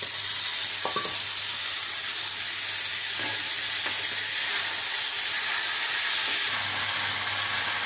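Chopped taro stolons and prawns sizzling in hot oil and spices in a wok: a steady frying hiss. A few light knocks come from the slotted spoon as the pieces are stirred.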